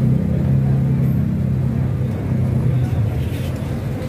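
A steady low rumble, with a low hum held through the first two and a half seconds.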